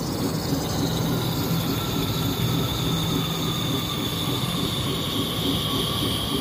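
Compressed air hissing and whistling out of a truck brake pedal valve under air-pressure test, a high whistle that grows louder about halfway through over a low steady rumble: the valve is still leaking air.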